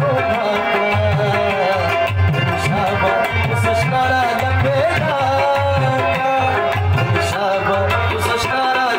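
Live Pashto folk music: a harmonium playing a melody over steady hand-drum strokes on tabla, in a continuous rhythm.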